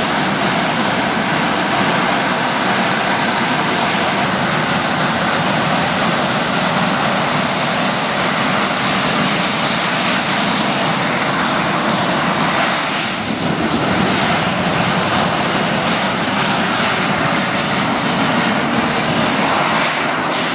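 Aero L-39ZA Albatros jet trainers' AI-25TL turbofan engines running at high power for takeoff: a steady, loud engine noise with a faint high whine.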